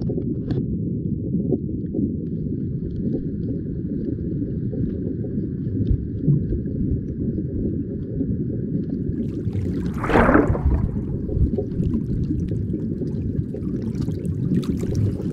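Steady low rumbling noise of a car in motion, with a brief louder whoosh about ten seconds in.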